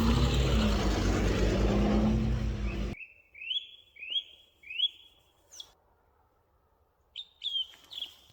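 About three seconds of loud rumbling noise with a steady low hum, cut off abruptly. Then a small bird calling in short, quick rising chirps, several in a row, with a pause and a few more near the end.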